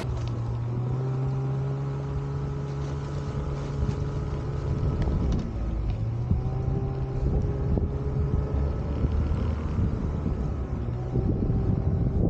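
Snowmobile engine running at a steady pitch under throttle. It eases off briefly about five seconds in, then picks back up.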